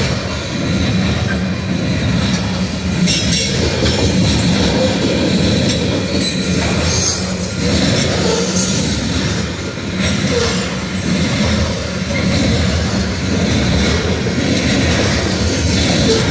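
Coal train hopper cars rolling past steadily: a continuous rumble of steel wheels on rail, with a few sharp clicks over the rail joints and a faint, steady wheel squeal.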